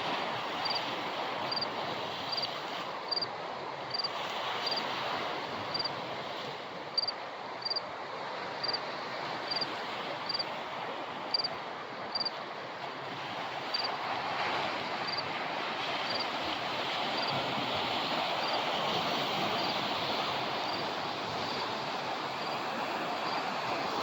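Sea surf washing steadily, swelling louder in the second half. Over it, short high chirps repeat about once a second through the first half, then mostly stop.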